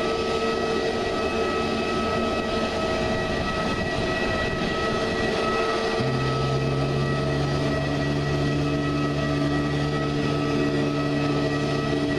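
Airbus A320neo's CFM LEAP-1A jet engines running at low power with a steady whine over a wash of noise. About halfway through, a new lower steady hum comes in.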